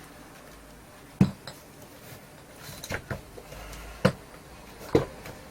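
Hard knocks and clicks from parts of a wireless speaker's casing and tools being handled during disassembly: a handful of short sharp knocks, the loudest about a second in.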